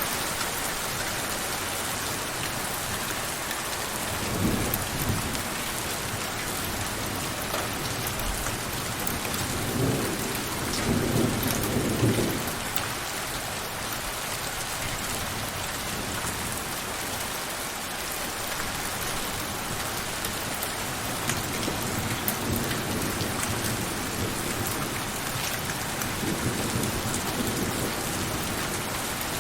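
Steady rain falling, with two low rumbles of thunder, one about four seconds in and a longer one from about ten to twelve seconds in.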